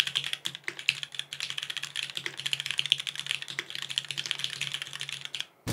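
Continuous fast typing on a tuned Keycult No. 2 rev. 1 87-key aluminium custom mechanical keyboard with brown tactile switches: a dense, even run of keystroke clacks.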